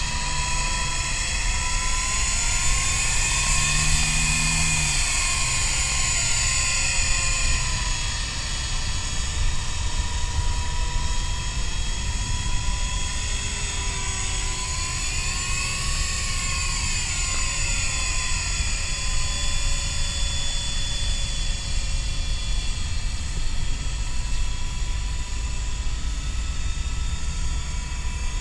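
Stock electric motor and rotor of an MJX F45 RC helicopter whining in flight. The pitch swells and falls back twice, about four seconds in and again around the middle, over a steady low rumble.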